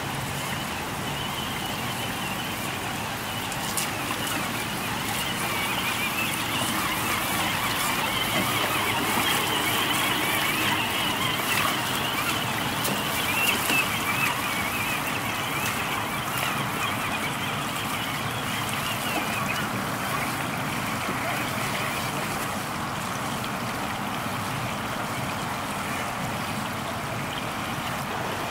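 Steady babbling of water running over rocks in a shallow stream, a little louder in the middle stretch.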